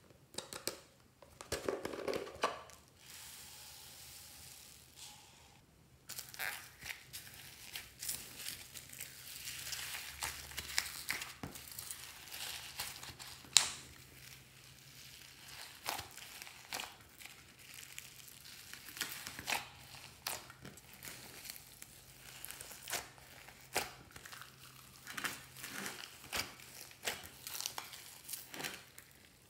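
Glossy slime full of foam beads being kneaded and squeezed by hand: many small crackles and clicks over a soft sticky hiss. The first few seconds are quieter handling before the kneading starts.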